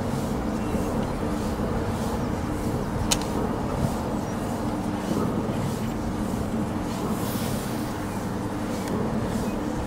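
A small wind turbine running: a steady mechanical hum from the nacelle, with a faint rhythmic swish about twice a second as the blades pass, over wind rumble. A single sharp metallic click comes about three seconds in.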